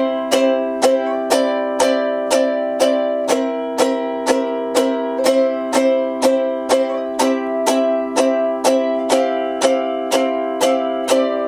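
Ukulele strummed on a C chord in even strokes about twice a second. The note on the first string shifts a few times as the fret changes (3, 5, 1, 3), picking out a simple melody over the chord.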